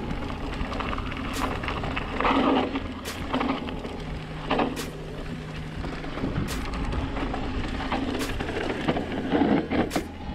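Mountain bike riding down a dirt singletrack: tyres rolling and crunching over loose dirt, with wind rumbling on the camera's microphone and the bike rattling over bumps.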